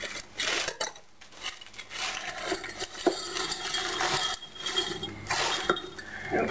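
Frozen peas poured from a plastic bag into a glass measuring jug, rattling and clinking against the glass, mostly from about two seconds in.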